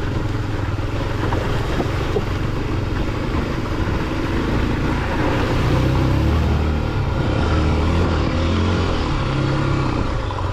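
Off-road motorcycle engine running under way, its revs rising about halfway through and again near the end, over a steady rushing noise of wind and tyres.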